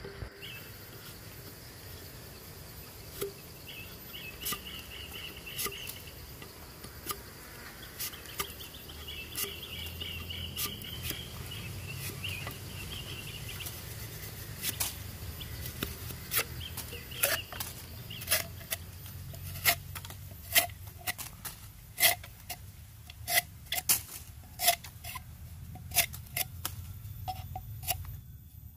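Insects trilling in two short spells, with irregular sharp clicks that come more and more often through the second half, the clicks being the loudest sound.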